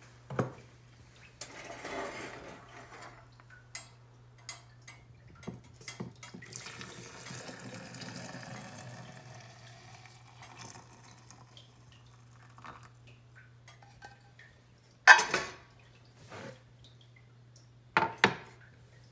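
Hot water poured from a small saucepan into a glass French press over coffee grounds: a steady splashing pour for a few seconds in the middle. Small clinks of the metal pot handled around it, and sharp knocks about three-quarters through and twice near the end, over a steady low hum.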